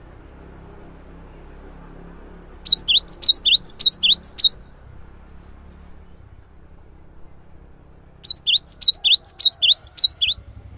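A cinereous tit (gelatik batu) singing: two bouts of about two seconds each of quick repeated high notes that sweep downward, about five a second, a few seconds apart.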